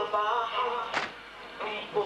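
A man chanting a Shia mourning lament (latmiya) in Arabic, his voice wavering through long ornamented lines with a short pause past the middle. A sharp slap about a second in and another at the end, in the manner of mourners beating their chests.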